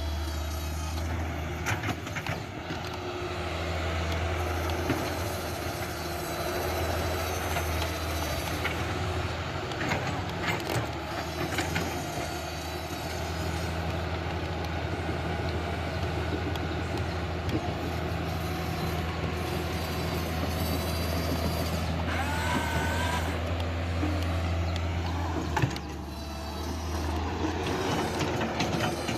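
Huina radio-controlled excavator running, a steady low hum under the whir of its motors, with scattered clicks and knocks from the moving arm and gears and a brief wavering whine near the end.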